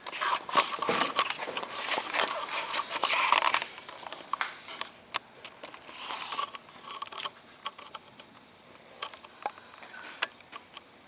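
Rustling and crinkling with quick clicks for the first three or four seconds, then scattered light clicks and taps: hands handling small parts and tools on a workbench.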